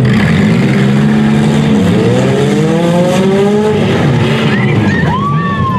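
Several compact demolition derby cars' engines running loudly together. One revs up in a rising pitch about two seconds in. A high squeal rises and falls about five seconds in.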